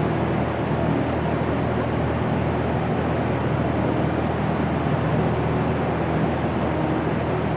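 A steady mechanical hum under an even rushing noise, like a motor or fan running continuously.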